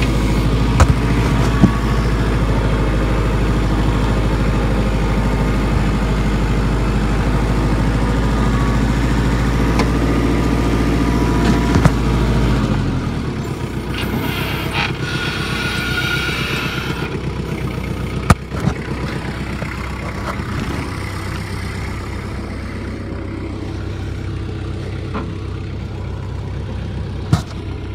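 Compact loader tractor's engine running steadily at raised throttle, then dropping to a lower, lighter idle about halfway through. A few sharp knocks, the loudest twice in the second half.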